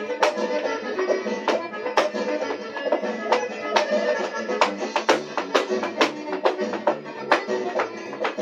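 Mexican folk dance music playing, with sharp, irregular foot-strikes of dance shoes on a tile floor, about two or three a second, as a folklórico dancer stamps out the steps.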